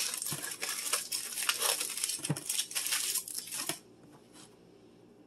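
Aluminium foil crinkling as it is unwrapped from a half onion, stopping a little under four seconds in.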